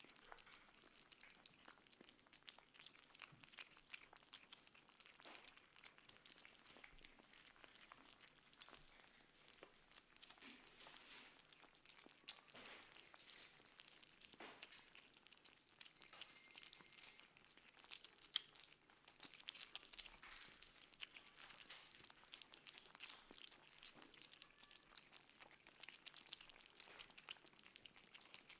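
Several kittens eating wet cat food from plates: faint, quick, irregular wet smacking, licking and chewing clicks.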